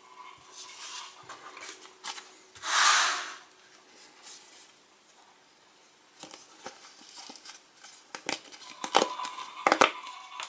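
Paper sticker packets being handled on a table: a loud ripping rustle about three seconds in, then a run of sharp crinkles and clicks near the end as a packet is torn open.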